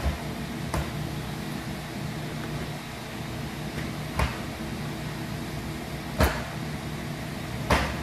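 Hinson short-throw shifter on a C5 Corvette's six-speed manual gearbox being moved by hand through the gates, clunking into gear five times at uneven intervals over a steady low hum.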